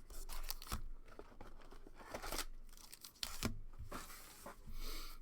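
Trading card packaging, a Panini Illusions football pack or box wrapper, being torn open and crinkled in the hands, in several irregular rips and crackles.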